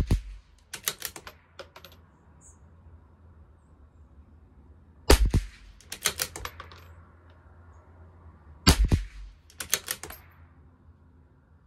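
CZ 457 LRP bolt-action .22 LR rifle firing Geco .22 LR rounds. There is a shot at the very start and two more about five and nine seconds in, each followed about a second later by a quick run of clicks as the bolt is worked to eject the case and chamber the next round.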